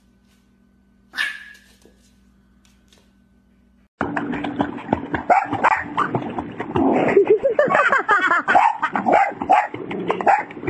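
A short high squeak about a second in, then a dog splashing hard in a pool with excited barking and yelping over the splashing water.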